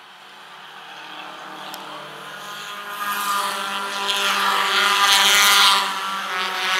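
Four-cylinder race cars running at high revs past the stands. The engine note rises and grows louder as a car passes close about five seconds in, then dips briefly before the next car comes up near the end.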